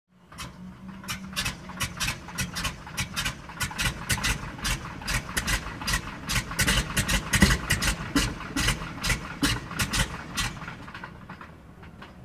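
North American T-6 Texan's Pratt & Whitney R-1340 radial engine being cranked for a start: an uneven string of pops and chuffs, a few a second, growing louder to a peak about seven seconds in, then dying away near the end.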